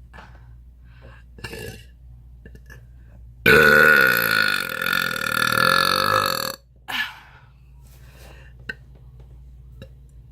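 A woman's deliberate air burp, made from swallowed air with nothing to drink, lasting about three seconds and starting about three and a half seconds in. A few short, quieter sounds come before it and a brief one follows just after.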